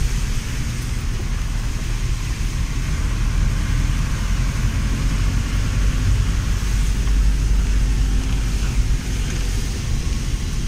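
Road noise inside a moving vehicle: a steady low rumble of engine and tyres, with a faint hiss over it.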